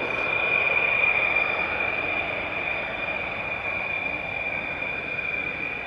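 Dassault Rafale's twin Snecma M88 turbofans running at low power before the takeoff roll: a steady high-pitched whine over a rushing hiss. A sharp click sounds right at the start.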